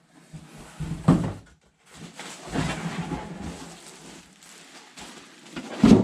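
Handling noise: a thump about a second in, rustling and scraping in the middle, and a louder thump near the end.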